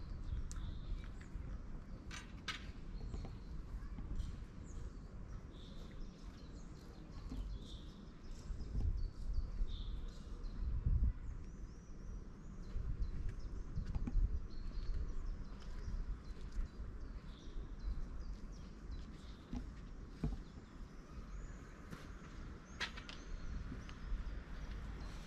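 Outdoor ambience: scattered songbirds chirping over a low, uneven rumble of wind on the microphone, with a few sharp clicks.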